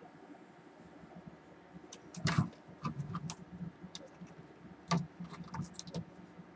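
Clicks and rattles of hands handling the wires, connectors and plastic casing of an opened UPS, with two louder knocks about two and five seconds in.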